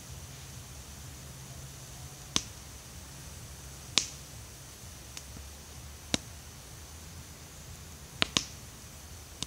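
Wood fire crackling in a steel fire ring: sharp single pops every second or two, with two in quick succession near the end.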